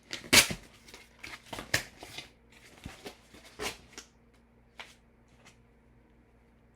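A cardboard box being torn open by hand: a run of sharp rips and rustles, loudest about half a second in, thinning out after about four seconds to a couple of faint clicks.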